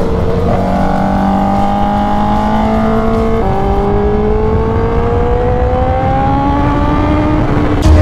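Honda CBR1000RR-R Fireblade's inline-four engine with an SC Project exhaust and cat delete, pulling under load. The engine note climbs steadily, drops once about three and a half seconds in, then climbs again.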